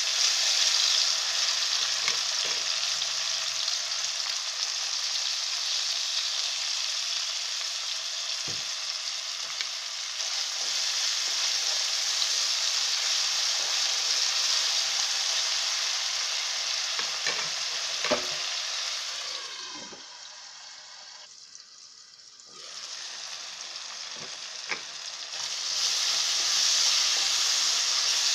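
Chopped tomatoes and onions sizzling in hot oil in a wok: a steady frying hiss with a few sharp taps and scrapes of the spatula against the pan. The sizzle dies down for a few seconds about two-thirds of the way through, then comes back.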